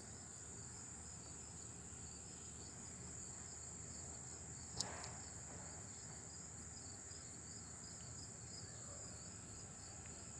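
A faint, steady high insect chorus with a rhythmic chirping beneath it. A single sharp click comes about five seconds in.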